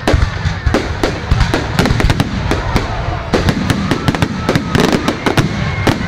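Fireworks display: aerial shells bursting overhead in a rapid, irregular barrage of loud bangs and crackles, several a second.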